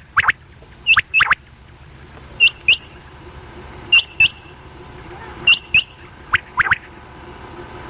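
Female quail calling: short, sharp, high double notes repeated about every one and a half seconds.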